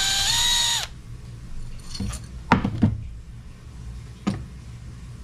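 Cordless drill/driver spinning out a 10 mm bolt from the side of the engine: a motor whine that steps up in pitch and cuts off about a second in. A few sharp metal clicks and clacks follow as the parts are handled.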